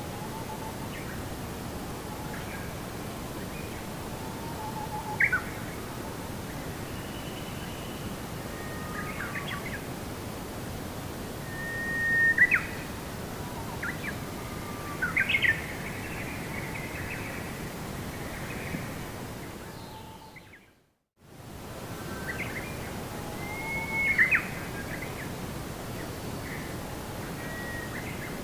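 Birds chirping and calling in short phrases over a steady background of even noise, as in a nature ambience recording. The whole sound fades out briefly about two-thirds of the way through and fades back in.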